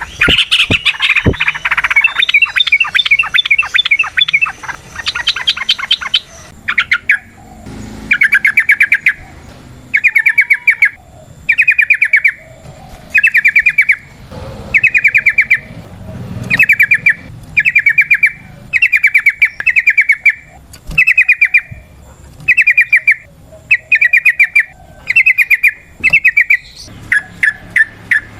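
Yellow-vented bulbuls (trucukan) singing: a dense, overlapping bubbly chatter for the first several seconds, then a long run of short rapid trills, one about every second or so.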